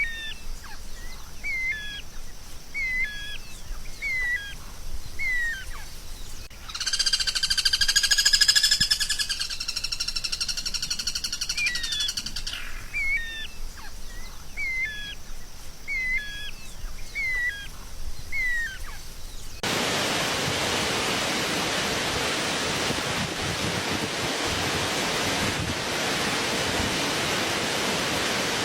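A songbird repeating a short chirp roughly once a second, broken by a few seconds of loud, long whistled notes. About twenty seconds in, a steady hiss starts suddenly and covers the rest.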